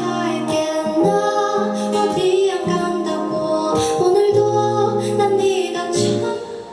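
Live band and female singer playing the closing bars of a gentle ballad, the voice drawing out long held notes over sustained bass notes; the music fades away near the end.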